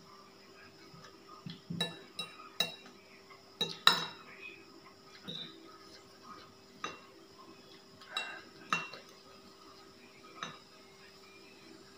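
Metal spoon and fork clinking and scraping against a ceramic bowl of instant ramen noodles: scattered sharp clinks every second or so, the loudest about four seconds in.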